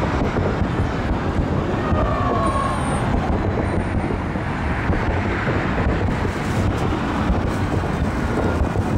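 Fireworks salute: many aerial shells bursting in quick succession, merging into a continuous dense rumble of booms.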